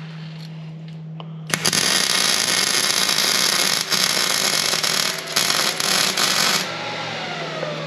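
Welding on a steel truck frame: a loud, crackling hiss starts about a second and a half in, runs about five seconds with a few brief breaks, then stops. A faint falling whine follows it over a steady low hum.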